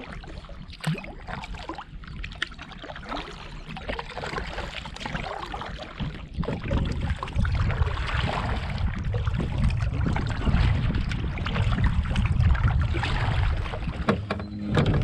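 Canoe being paddled: paddle strokes splashing and water lapping against the hull, with many small splashes and knocks. From about six seconds in, a heavy low rumble of wind on the microphone joins it.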